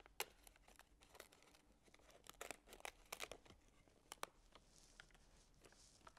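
Dried leaves being handled and cut in half, giving faint, irregular crackles and crinkles.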